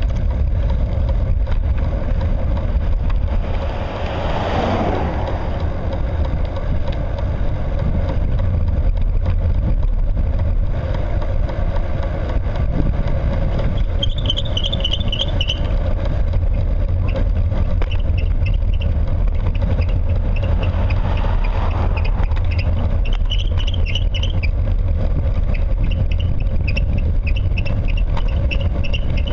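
Steady low rumble of road and wind noise from a camera moving close to the road surface. A louder swell passes about four to five seconds in, and short high chirps come and go later on.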